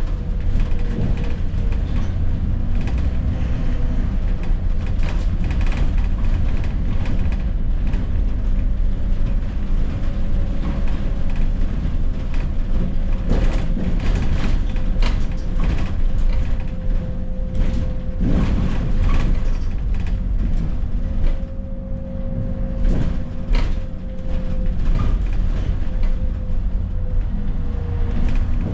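Alexander Dennis Enviro400 double-decker bus heard from inside while running: a steady low engine and road drone with a thin steady tone that drifts slightly in pitch, and frequent rattles and knocks from the bus's fittings.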